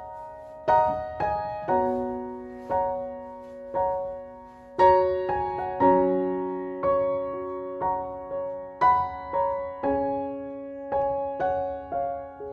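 Gentle background piano music: single notes and chords struck about once or twice a second, each ringing and fading away.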